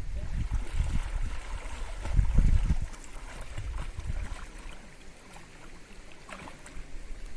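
Rushing water of a rocky mountain stream, a steady hiss, with wind buffeting the microphone in low gusts, strongest about two seconds in.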